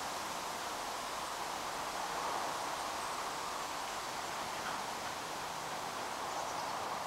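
Steady outdoor ambience: an even, rustling hiss with no distinct events.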